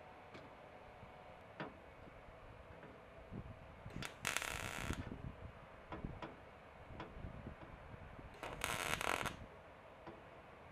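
MIG welder laying two short stitch welds on a sheet-metal truck-box patch panel: a crackling, sizzling arc about four seconds in lasting under a second, and another near nine seconds. Faint clicks and handling noise come between them.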